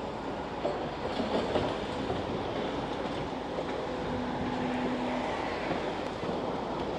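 Tracked excavator moving over compacted demolition rubble, its engine running under a continuous clanking and rattling of tracks and debris.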